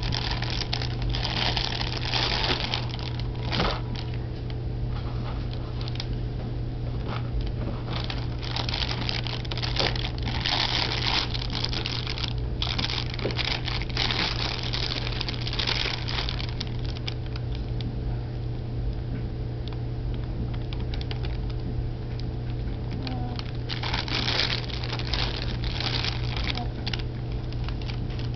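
Plastic cereal bag with Cheerios inside crinkling and rustling in irregular bursts as a toddler handles it, over a steady low hum.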